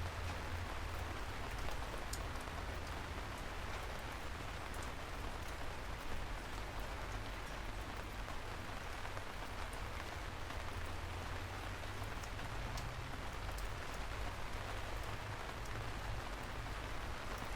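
Steady rain falling, with individual drops ticking here and there over an even hiss and a low rumble underneath.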